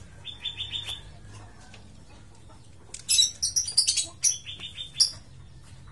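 Small birds chirping: a quick run of short high chirps about half a second in, then a louder, busier burst of chirps from about three seconds in, over a faint low hum.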